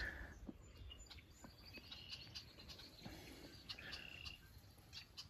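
Faint outdoor quiet with scattered short, high wildlife chirps and brief trills.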